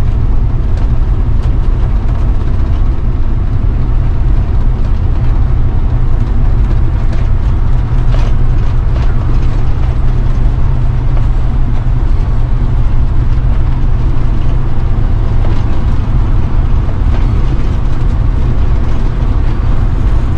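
Cabin noise of a Class A motorhome on the move: a steady, loud low engine and road rumble, with occasional light rattles.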